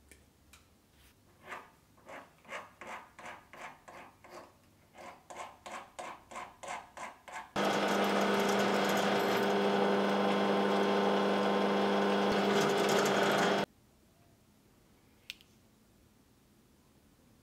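Short scraping strokes, about three a second, as a small lead casting is cleaned up. Then a small electric drill runs steadily for about six seconds, boring a hole through the cast lead ball, and stops abruptly.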